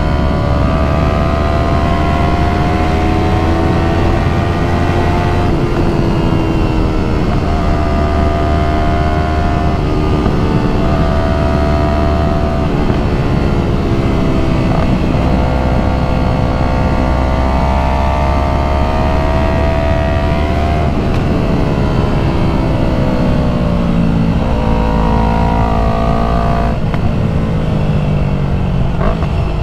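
Yamaha MT-03 motorcycle with an aftermarket full exhaust, ridden hard: engine note climbs and drops repeatedly as the throttle is worked and gears change on a winding road.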